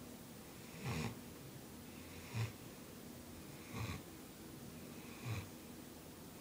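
Bloodhound puppy snoring in her sleep: four short snores, one about every one and a half seconds.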